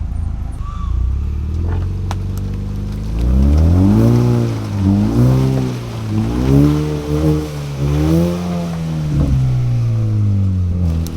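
Ranger side-by-side's engine running steadily, then revved up and down several times as the throttle is blipped in mud, keeping the wheel speed up so the tire treads clear.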